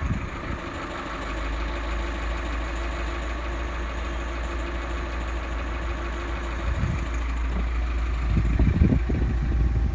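Tata Nexon engine idling steadily, with an uneven knock sound that the owner links to a fault showing as a check-engine warning, loss of pickup and quick overheating. A low rumble grows louder near the end.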